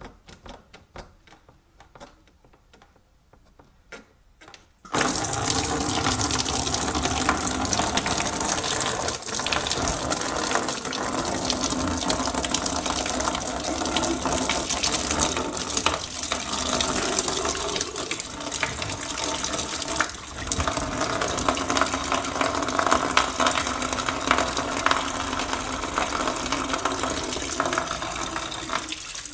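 Red engine coolant gushing steadily out of the disconnected bottom radiator hose into a catch bucket. It starts suddenly about five seconds in, after a few faint clicks of handling. The cooling system is being drained because this radiator has no drain plug.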